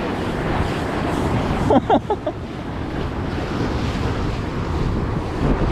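Surf washing against a rocky shore, with wind buffeting the microphone. About two seconds in comes a brief pitched sound of a few short rising and falling notes, lasting about half a second.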